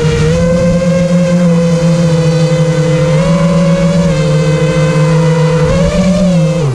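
Small motor of a radio-controlled car running loudly at a steady high pitch, rising slightly a few times with throttle, then winding down right at the end.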